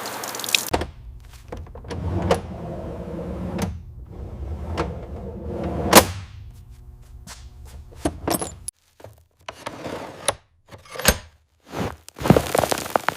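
A series of sharp knocks and clatters, heard over a steady low machine hum that stops about nine seconds in. After the hum stops, the knocks come singly with short gaps between them.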